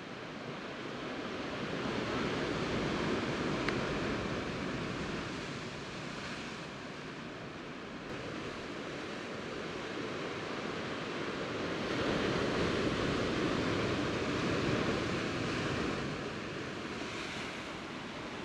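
Sea surf washing against shoreline rocks, a steady rush that swells twice: about two seconds in and again around twelve seconds in. A single brief click sounds about four seconds in.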